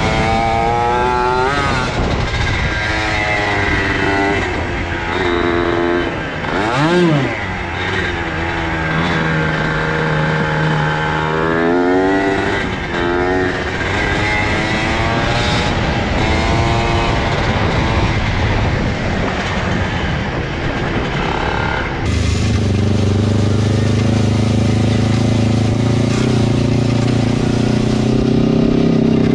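Mini bike engine being ridden hard on a dirt trail, its pitch rising and falling quickly as the throttle is worked. About two-thirds of the way in the sound cuts to a steadier, lower engine note.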